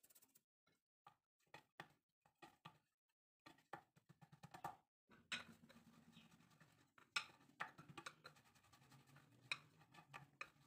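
Faint handling sounds of dough work on a wooden pastry board: scattered light taps and knocks of hands, plate and dough. A low steady hum comes in about halfway through.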